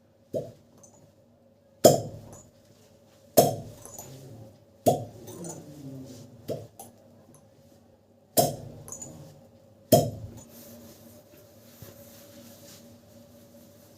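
A series of sharp knocks, seven in all, about one and a half seconds apart, each ringing out briefly; after the last one, around ten seconds in, only a faint steady hum remains.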